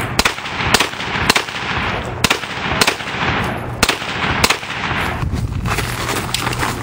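A 9mm pistol-caliber carbine firing a string of seven shots, unevenly spaced half a second to a second apart, each with a short echo. The string is followed by a few faint ticks.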